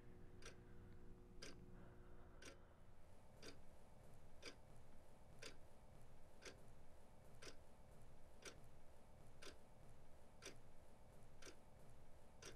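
Wall clock ticking, faint and even, about once a second, over a low room hum.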